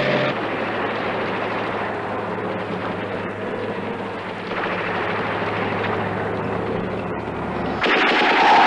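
Film battle soundtrack of tanks on the move: a steady rumbling engine drone with noisy clatter. Near the end it cuts suddenly to a crowd of men yelling a battle cry.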